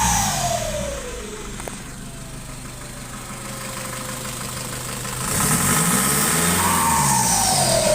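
Nissan ZD30 3.0-litre four-cylinder turbodiesel revved, settling back to a steady idle for a few seconds, then revved again about five seconds in, with a whine falling in pitch as each rev dies away.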